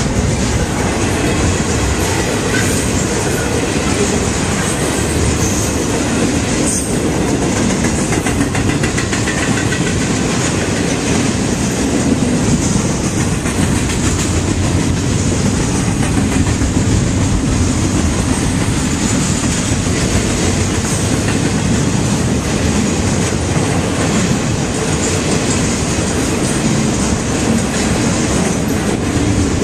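Canadian Pacific freight train rolling past at close range, its wheels clattering steadily over the rail joints.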